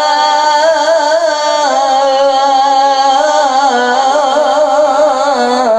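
A male Qur'an reciter in melodic mujawwad style holding one long, ornamented vocal line without pausing for breath, the pitch wavering in quick trills and moving in steps.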